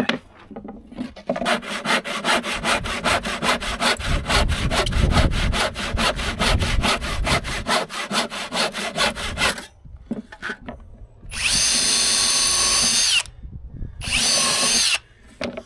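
A hand saw cuts through a wooden batten in quick, even strokes, about six a second, for around eight seconds. Then a small electric power tool runs twice, for about two seconds and then one second, with a steady whine that falls in pitch as it winds down each time.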